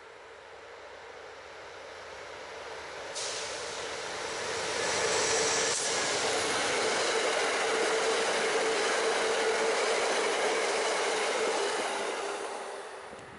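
A train passing close by. Its wheel-and-rail noise builds over the first few seconds, stays loud through the middle with a steady ringing tone over the noise, then falls away quickly near the end.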